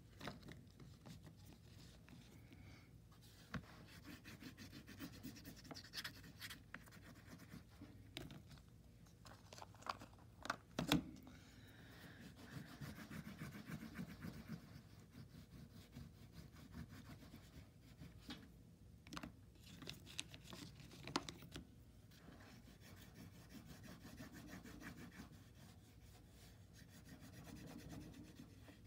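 Oil pastel stick rubbing and scratching across paper in faint strokes, with a few sharp clicks scattered through, the loudest about eleven seconds in.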